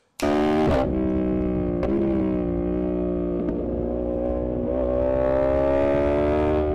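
Yamaha YZF-R1's crossplane inline-four running through a Spark titanium exhaust, recorded onboard while riding. The engine note is held fairly steady at speed, dipping briefly in pitch a few times. It starts abruptly.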